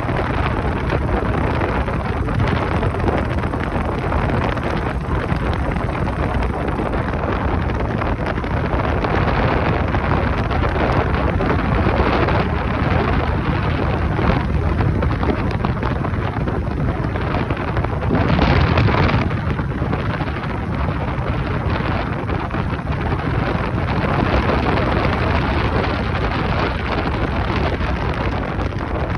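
Heavy wind rushing over the microphone of a moving motorcycle, a dense steady roar with the bike's running noise underneath. A stronger gust swells about two-thirds of the way through.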